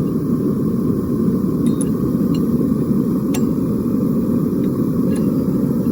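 A forge running with a steady, even roar, with a few faint ticks over it.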